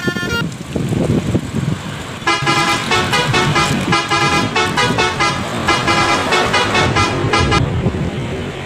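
A tour bus's multi-tone 'telolet' (basuri) horn playing a quick tune of short notes for about five seconds, starting about two seconds in, over the bus engine running. The last note of a rising horn run cuts off right at the start.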